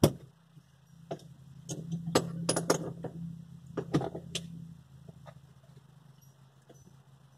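Metal latches on a Sportsmobile van's pop-top roof being fastened by hand. A sharp click, then a string of clicks and clinks over the next few seconds.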